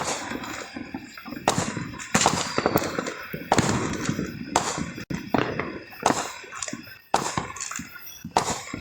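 Fireworks and firecrackers going off: a string of sharp bangs and pops, roughly one every half second to a second, each trailing off in a short echo.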